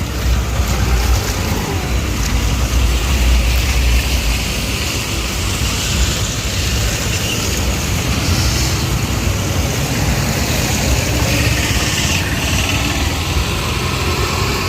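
Motor vehicle engines running in street traffic over a steady hiss, with a heavy low rumble in the first few seconds.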